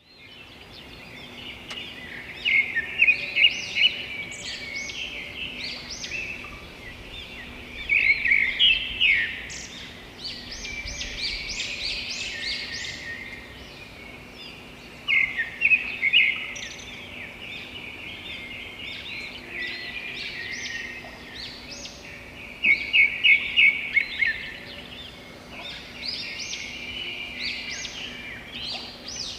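A chorus of small birds chirping and singing, with louder bursts of quick repeated chirps every several seconds. A faint steady hum runs underneath.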